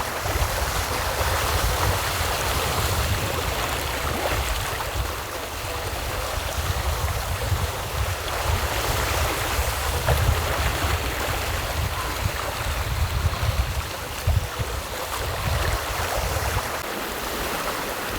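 Wind buffeting the microphone over the rush and slosh of water along the hull of a sailboat under way, with a gusty, uneven low rumble.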